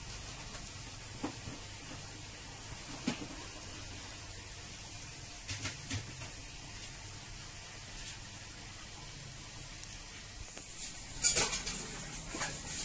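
Banana-leaf-wrapped cakes toasting in a dry frying pan: a steady hiss with scattered crackles and ticks. Near the end comes a short run of louder clicks.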